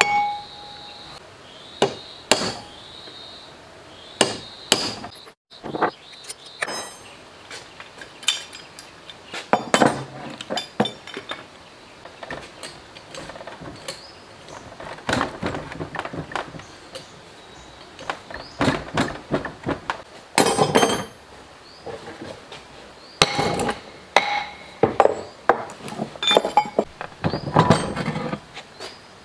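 Irregular metal knocks and clinks of a hammer and hand tools working on the cast-iron body and flywheel of an old diesel engine as it is taken apart. Some blows are sharp and ring briefly.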